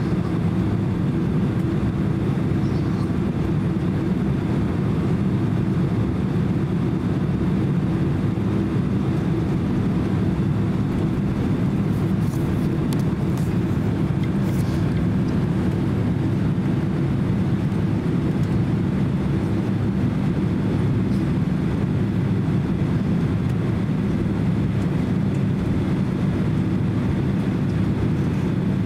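Cabin noise inside a Boeing 767-300 airliner taxiing: a steady low rumble from its engines at taxi power.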